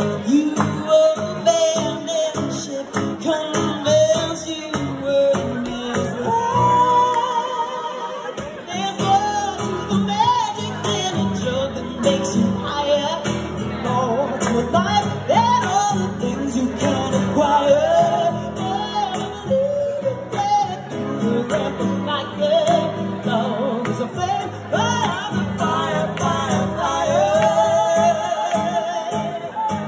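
A live song: a woman sings while strumming an acoustic guitar, and a man sings along at a second microphone.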